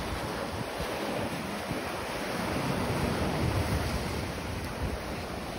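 Sea waves washing in steadily, with wind rumbling on the microphone; the sound swells a little around the middle.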